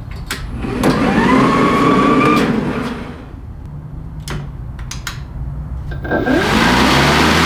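Battery electric lawnmower's motor spinning up with a rising whine about a second in, running briefly, then winding down. After a few clicks it spins up again near the end and runs steadily.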